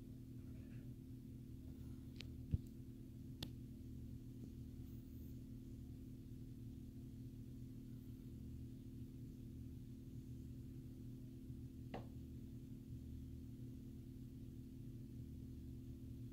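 A steady low hum made of a few fixed tones over a faint fluctuating rumble, with a few faint clicks, the sharpest about two and a half seconds in.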